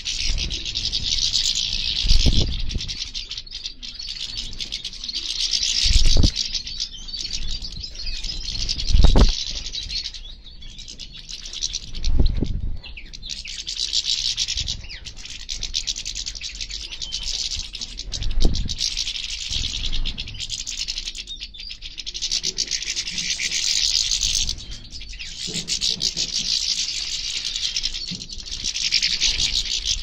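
A flock of European goldfinches twittering continuously, a dense high chatter of many birds that swells and fades. Several short low thumps break in, the loudest near the start and about a third of the way through.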